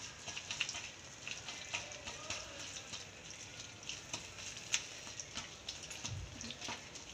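Chopped onions and spices frying in melted butter in a pan, being stirred: a faint sizzle with scattered small crackles.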